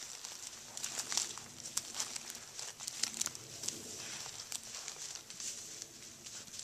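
Footsteps crunching and rustling through dry leaf litter and dead bracken, an irregular run of crackles.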